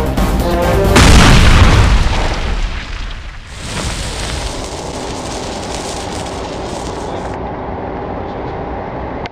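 A loud explosion boom about a second in, dying away over about two seconds, after music that breaks off as it hits; steady background noise follows.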